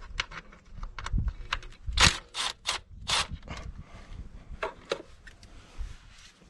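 Hand work on a truck's air intake: a run of sharp clicks and knocks as parts and hoses are handled and fitted, loudest about two to three seconds in.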